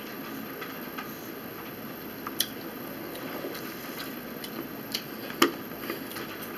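Chewing and mouth sounds of people eating orange chicken wings, with scattered sharp clicks of metal forks against plastic bowls. The loudest click comes about five and a half seconds in.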